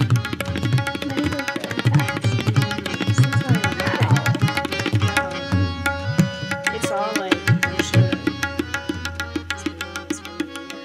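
Tabla played fast: a dense run of sharp strokes on the treble drum, mixed with deep bass-drum strokes, some of which bend in pitch, over a steady held accompanying tone.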